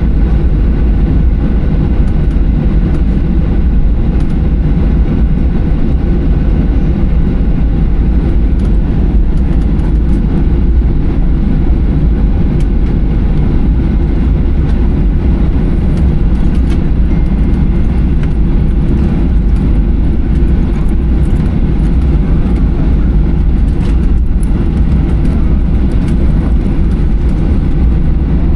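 Steady low rumble inside the cabin of a Boeing 737-800 moving on the ground after landing, with engines at idle and the airframe rolling.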